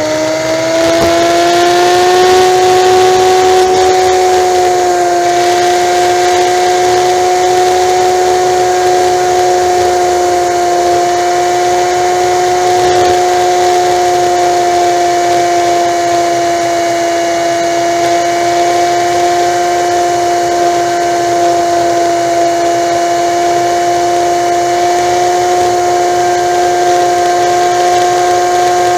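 Honda Magna V4 motorcycle engine at highway cruising speed: a steady droning whine that rises a little in pitch over the first few seconds as it accelerates, then holds level, over a constant rush of wind noise.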